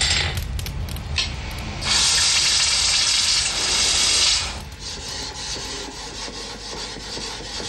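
A loud hiss lasting about three seconds, then quieter, evenly repeated rubbing strokes of a steel Japanese sword blade being worked by hand.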